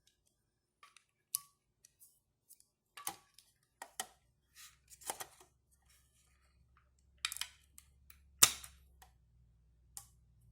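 Scotch tape and scissors being handled at close range: scattered sharp clicks and snips, the loudest about eight seconds in. A faint low hum comes in about four seconds in.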